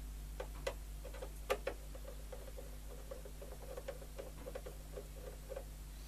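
Faint, light ticks and clicks from a screwdriver turning an adjuster through the back panel of a Siemens RG13 radio: a few sharper clicks at first, then a quick, dense run of small ticks through the middle seconds, over a steady low hum.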